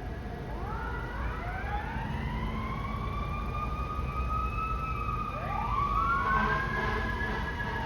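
Fire engine's Touchmaster electronic siren worked in manual mode: the tone winds up quickly about half a second in, slowly coasts down, then winds up again about five seconds in, over the low rumble of the truck.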